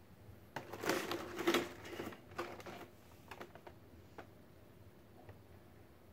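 Clear plastic insert tray of board-game miniatures handled and lifted out of a cardboard box: a quick run of plastic crackles and clicks for about two seconds, then a few lighter clicks.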